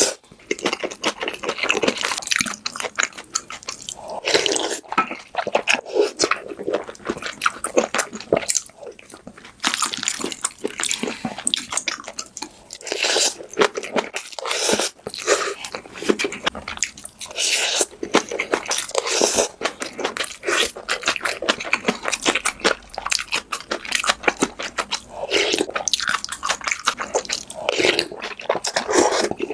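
Close-miked eating: a person biting and chewing food, with crunching and wet mouth sounds that come in irregular clusters.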